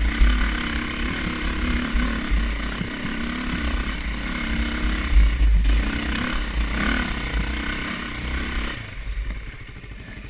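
Dirt bike engine revving up and down under load on a rough climb, with heavy low rumble and knocks and rattles from the bike bouncing over the ground. Near the end the engine eases off and the sound grows quieter.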